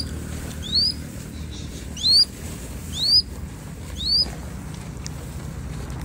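A hawk on a falconer's glove giving a series of short, rising, shrill whistled calls, about one a second, five in all, stopping a little past four seconds in. A steady low rumble runs underneath.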